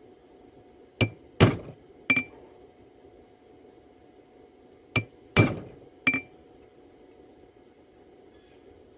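Blacksmith's hammer striking steel at the anvil while forging a railroad spike: two groups of three blows, about a second in and again about five seconds in, each group with a louder middle blow and a short metallic ring after each strike.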